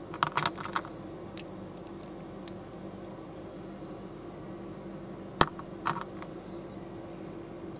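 Lego-compatible Panlos plastic bricks clicking as pieces are snapped together and pressed onto a baseplate. A quick cluster of clicks comes near the start, then a single click, a sharp click about five seconds in and a couple more just after, over a steady low hum.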